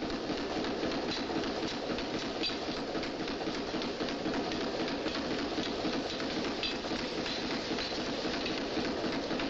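Continuous dense mechanical clattering, steady in level with no pauses.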